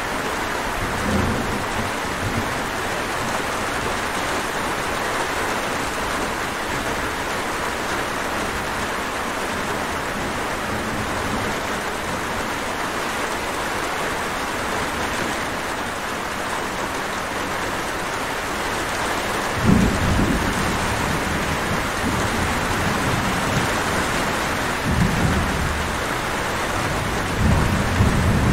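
Steady rain falling, with low rumbles of thunder about two-thirds of the way in and again near the end.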